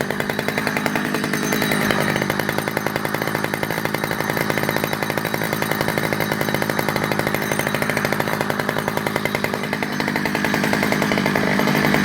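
Stihl 010AV 37cc two-stroke chainsaw running steadily at low speed, its firing pulses even and unbroken.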